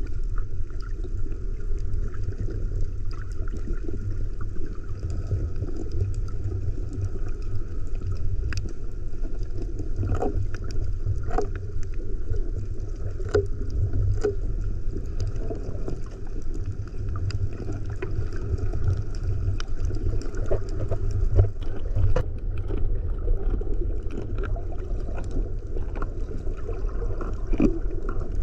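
Underwater sound picked up by a camera in its waterproof housing: a steady muffled rumble of moving water, with scattered sharp clicks and pops.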